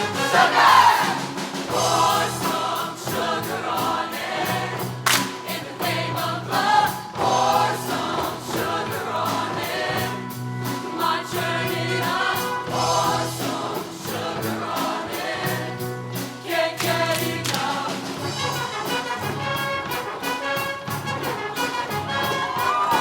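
High school show choir singing with a live band: a bass line and drums keep a steady beat under the voices.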